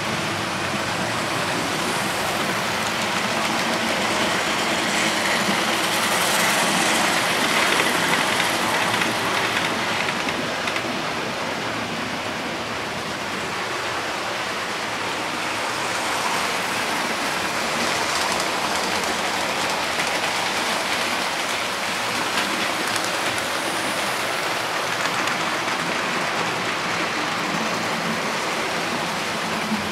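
OO-gauge model train running along the layout's track: a steady rattling hiss of wheels and motor, swelling a little louder between about six and nine seconds in.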